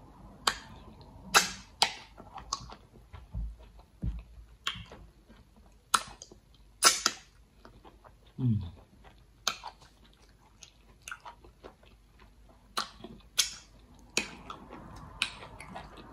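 Close-up mouth sounds of eating slimy okra and egusi soup by hand: wet smacks and clicks of chewing at an irregular pace, with a short low falling 'mm' about eight seconds in.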